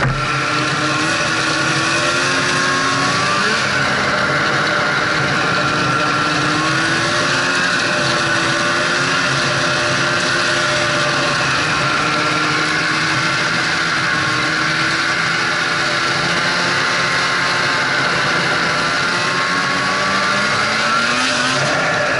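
Snowmobile engine running steadily while the machine travels along a trail, its pitch drifting gently up and down with the throttle, over a constant rush of track and wind noise.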